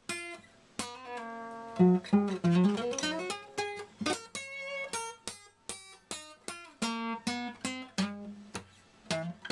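Acoustic guitar played in quick picked and strummed notes, with a few notes sliding upward about two to three seconds in.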